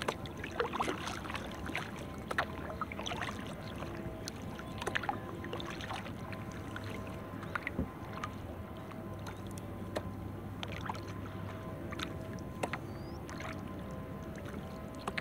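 Kayak being paddled on calm water: irregular small splashes, drips and knocks of the paddle and water against the hull, over a faint steady hum.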